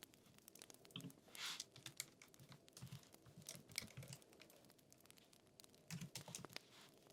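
Quiet typing on a computer keyboard: irregular keystrokes clicking, with soft thuds as the keys bottom out.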